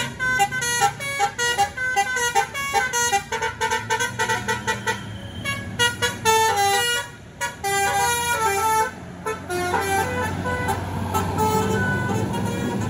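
Tour bus basuri (telolet) multi-trumpet musical horn playing a fast melody of short notes that jump up and down in pitch, over the low hum of the bus engine. The tune breaks off about nine seconds in, leaving the engine and a few faint notes.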